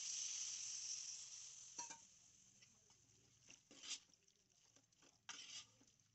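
Hot water pouring into a pan of fried chicken masala, a steady rush that fades out about two seconds in. Then a steel spoon stirring the curry, a few short scrapes against the pan.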